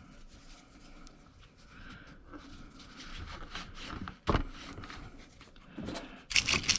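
Wire brush scrubbing a corroded battery cable terminal: faint scratching strokes at first, a single knock about four seconds in, then loud, rapid scrubbing near the end.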